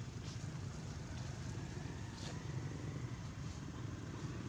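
A steady low engine rumble, like a motor running nearby, with no clear change in pitch or loudness.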